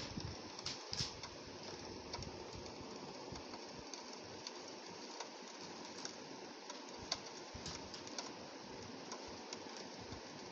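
Rain on a window pane: a steady hiss with many separate drops ticking on the glass.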